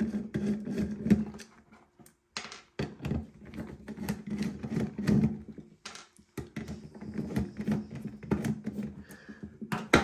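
Screwdriver turning out the screws of a mortice lock's cover plate, with many small metal clicks and knocks of the screwdriver, screws and steel lock case handled on a wooden bench, and a sharp click near the end.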